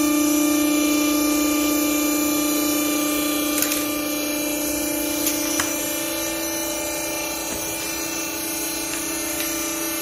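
Hydraulic power unit of a vertical used-clothes baler running with a steady hum, easing slightly in level, as the press platen lifts and the strapped bale is released. A few light knocks midway.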